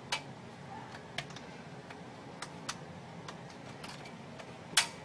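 Scattered sharp clicks and taps from hands working on a printer, irregular and a few seconds apart. One louder click comes near the end.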